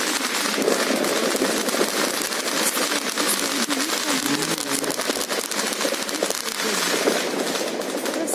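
Dense, unbroken crackling and popping of many fireworks and firecrackers going off at once across the surrounding neighbourhood.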